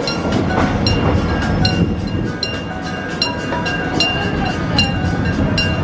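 A slow-moving tourist train rumbling along the rails over a level crossing, while the crossing's warning bell rings with a quick, steady dinging.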